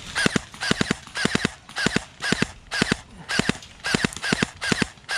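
Airsoft gun firing rapid double shots, about two pairs of sharp cracks a second, in a steady run.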